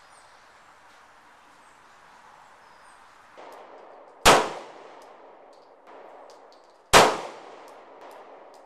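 Two 9mm pistol shots from a Beretta 92FS, about two and a half seconds apart, each a sharp crack with a short echoing tail.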